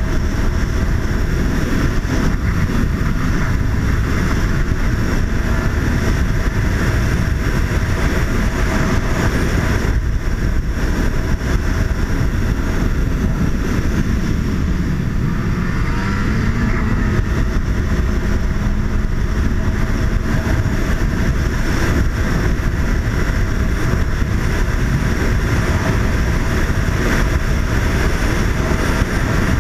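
Snowmobile engine running steadily while the sled drives along a trail, with heavy wind rumble on the helmet-mounted microphone. The engine pitch rises briefly a little past halfway.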